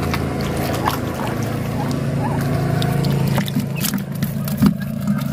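An engine idling, a low steady hum, with a few faint clicks and knocks over it.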